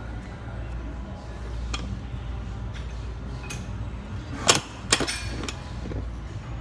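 Steady low hum of a gym room with two sharp metallic knocks about half a second apart, a little past halfway: the lat pulldown machine's weight stack clanking during a heavy set.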